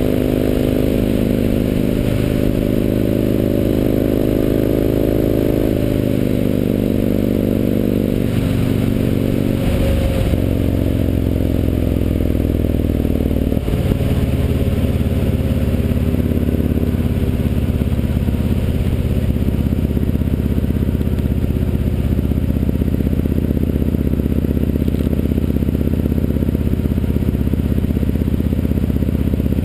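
Yamaha MT-01's big air-cooled V-twin engine running while the motorcycle is ridden, picked up by a chest-mounted GoPro shielded against wind. The engine note shifts and glides in pitch several times in the first half, as with gear changes and throttle changes, then holds steady. It dominates over the wind noise.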